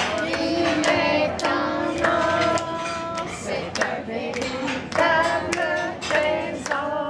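Several voices, including women's and a child's, singing a celebratory song together with hands clapping along in rhythm.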